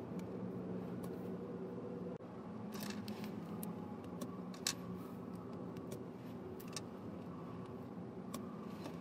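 LEGO Technic plastic parts clicking as they are pressed together by hand: a few sharp, separate clicks, the loudest about halfway through, over a steady low hum.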